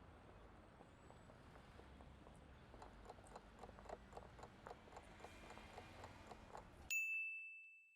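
Faint, quick ticking of a quiz countdown timer over a low hiss, ending in a single bright ding near the end that rings out for about a second.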